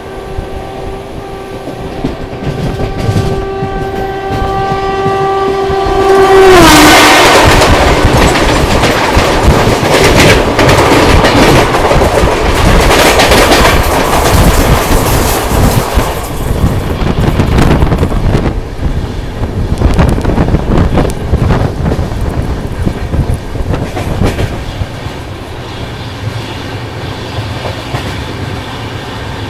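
A passing train's horn held as one long steady blast, its pitch dropping suddenly about six seconds in as it goes by, followed by about ten seconds of the passing train rushing past very loudly. After that comes the steady running noise and clickety-clack of the moving train.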